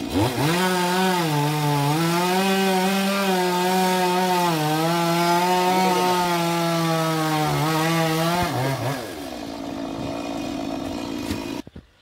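Chainsaw running at high revs, cutting into a coconut palm trunk, its engine note dipping briefly twice as it takes the load, then dying away about nine seconds in.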